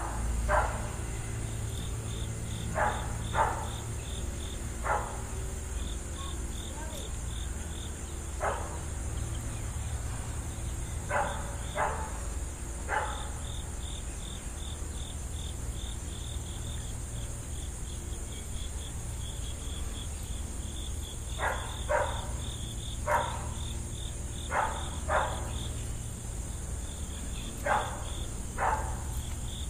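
Crickets chirping in a steady rhythmic pulse over a continuous high insect drone. Every few seconds there is a short sharp click, mostly in pairs about half a second apart, louder than the insects.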